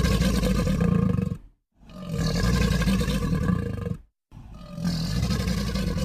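Dinoshark creature roar sound effect: three deep, rasping roars in a row. The first is already under way and stops about a second and a half in, the second runs from about two to four seconds, and the third starts just after, each break cut off abruptly.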